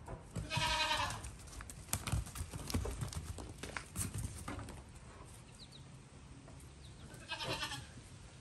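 Goat kids bleating: two bleats, one near the start and one near the end, with scattered light knocks and clicks in between.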